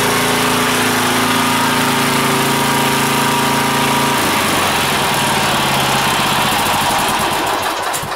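Kawasaki FC420V 14 hp single-cylinder engine on a walk-behind mower running steadily, run after an oil change so the new oil fills the filter. About four seconds in its steady note changes to a rougher, uneven sound, and near the end the engine stops.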